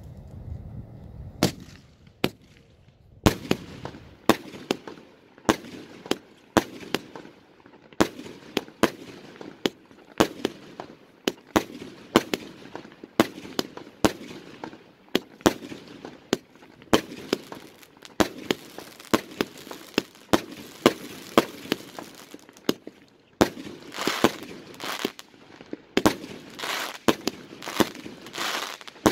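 A 36-shot consumer firework cake firing: sharp shots and aerial bursts one after another, about one to two a second, starting about a second and a half in. The last few seconds have longer, denser bursts.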